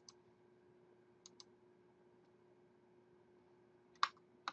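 Computer mouse clicks: a quick double-click at the start, another double-click about a second and a quarter in, then two louder single clicks near the end.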